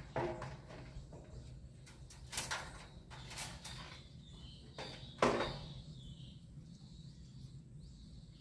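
Several scattered knocks and scrapes of timber being handled and positioned, the loudest a single sharp thump about five seconds in.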